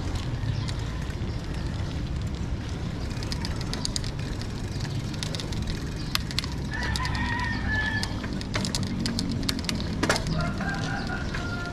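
Rooster crowing twice, once about seven seconds in and again near the end, over a steady low rumble and scattered clicks.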